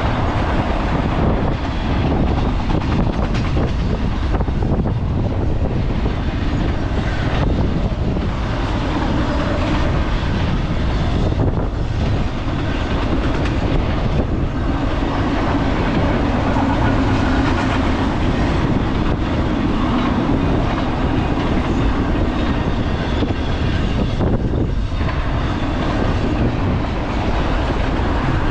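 Double-stack container freight train passing at close range: a steady, loud rumble of its well cars' wheels rolling over the rails.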